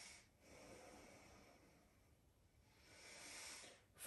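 Near silence with faint breathing: two slow breaths, one about half a second in and another near the end.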